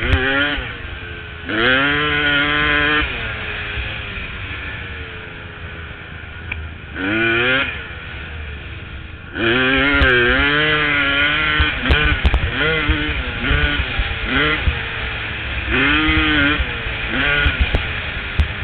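2002 Honda CR250 two-stroke single-cylinder dirt bike engine, fitted with an FMF Gnarly expansion-chamber pipe and Q Stealth silencer, revving in repeated bursts as the throttle is opened and rolled off. Each burst climbs in pitch; the longest pull comes about halfway through, with shorter ones near the end and a lower drone between them.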